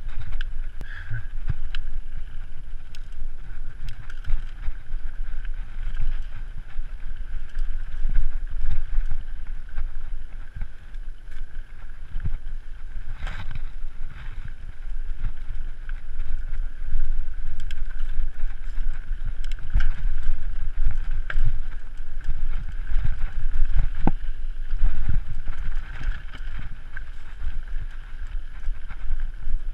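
Mountain bike riding fast down a dirt singletrack: a low rumble of wind on the microphone and tyres over the dirt, with a steady high buzz and rattles and sharp knocks from the bike over bumps, the loudest about 13 and 24 seconds in.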